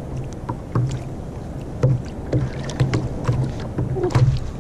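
Water lapping and slapping against a sit-on-top kayak's hull, with scattered light clicks and knocks.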